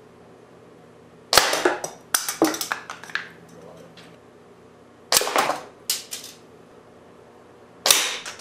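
Three shots from a single-shot .177 air rifle, about four and then three seconds apart, each a sharp crack followed by a quick clatter of the pellet hitting the plastic toy targets and the pieces knocking onto the wooden board.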